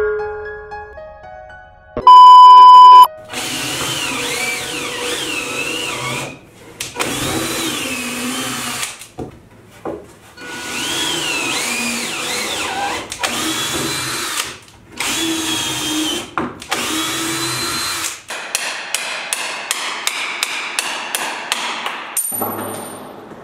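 Cordless drill driving screws into wooden boards in repeated bursts of a few seconds each, its motor whine rising and falling with the trigger. About two seconds in, a loud steady beep lasting about a second; near the end, a run of quick even clicks.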